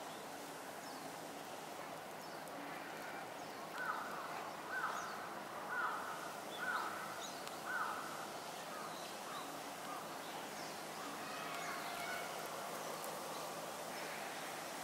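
A crow cawing five times, about once a second, each call short and falling off at the end, over steady outdoor background noise, with small birds chirping faintly.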